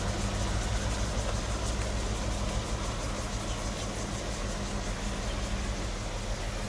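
Railway locomotive standing and running steadily: an even, low engine hum with a hiss above it.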